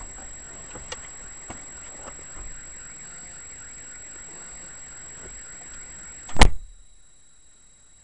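Low, steady car-cabin noise with a few light knocks, then one loud sudden thump about six and a half seconds in, after which the sound drops away to a faint hiss.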